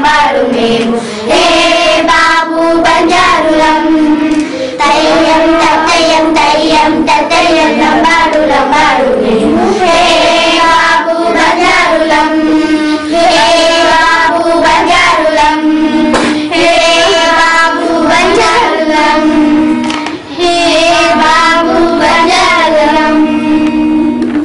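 A group of children singing a rhythmic Lambadi folk-song refrain in unison, with claps keeping the beat. The singing stops at the very end.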